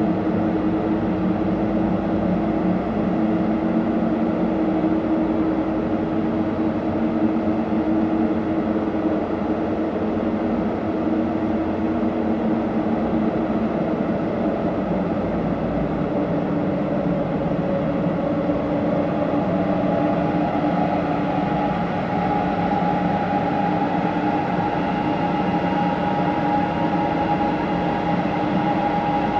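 Soma Labs Lyra-8 analog drone synthesizer playing a dense, noisy drone washed in reverb, with steady low held tones and a higher tone coming in about two-thirds of the way through.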